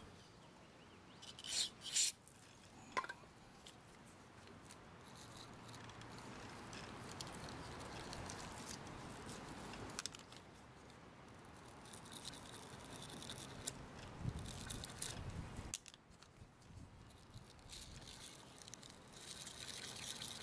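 Faint scrubbing and scraping of a wire brush against the corroded metal connector inside a lawn mower's spark plug boot, cleaning off the corrosion, with two short hisses about a second and a half in.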